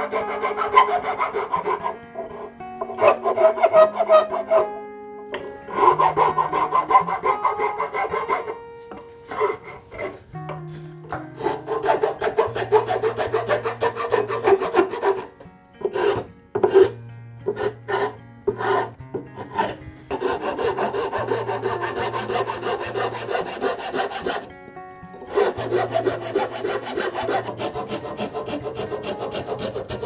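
A hand file rasping across a zebrawood knob in bouts of quick back-and-forth strokes, with short pauses between bouts. Soft background music plays underneath.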